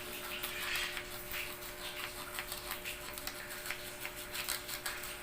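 Small plastic toys being handled, making light, irregular clicks and rustles, with a faint steady hum underneath.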